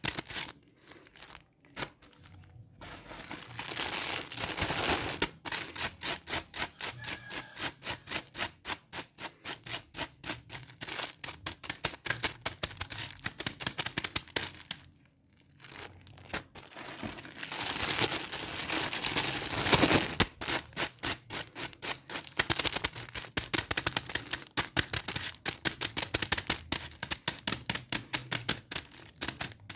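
Rhythmic rasping, scratchy strokes repeating about two to three times a second, with a short pause and a louder, denser stretch of rasping a little past the middle.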